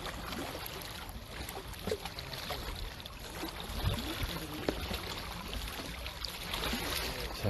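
Steady wash and lapping of sea water with a low rumble, and a short voice sound right at the end.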